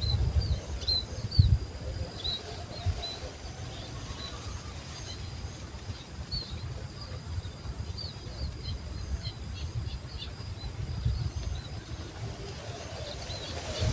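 Small birds chirping in short, high, repeated chirps, over an uneven low rumble of wind on the microphone.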